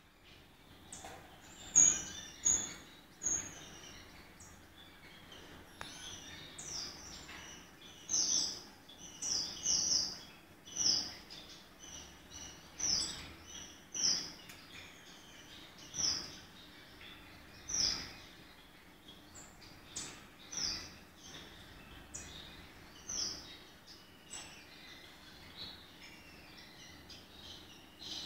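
Gouldian finches calling: short, high, slightly falling chirps repeated about every second or two, with fainter twittering between.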